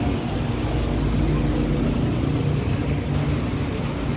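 Busy city street traffic: cars running past in a steady mass of engine and tyre noise.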